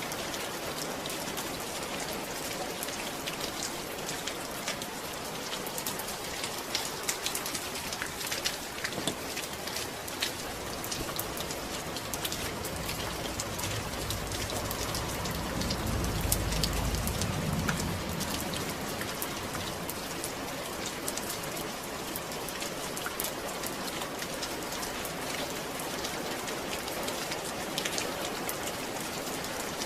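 Steady rain falling, with a dense patter of drops hitting a surface. About halfway through, a low rumble swells and fades over a few seconds.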